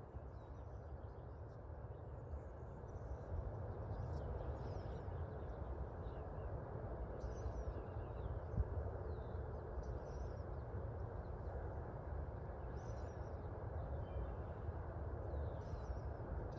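Faint, scattered bird chirps every second or two over a steady low outdoor background hum.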